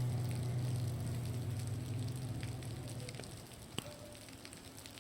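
Scattered crackling ticks of a bonfire mixed with meltwater dripping off a roof. Over the first three seconds a motor's steady drone fades away, and a single sharp snap sounds near the end.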